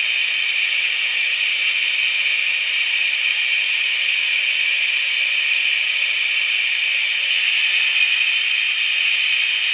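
Compressed air hissing steadily out through the open release valve of a wood-stabilising pressure chamber as it is vented down from about three atmospheres after pressure impregnation. The hiss is high-pitched and briefly a little louder about eight seconds in.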